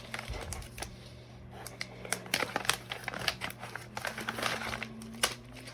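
Thin plastic polybag crinkling and crackling as it is handled and torn open, in irregular rustles throughout.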